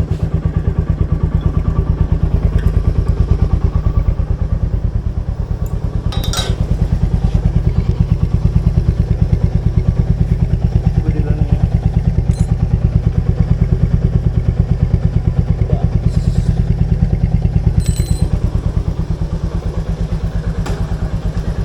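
Royal Enfield Meteor 350's single-cylinder engine idling in an even, rapid pulse. A few sharp metallic clicks stand out over it, the loudest about six seconds in and another near eighteen seconds.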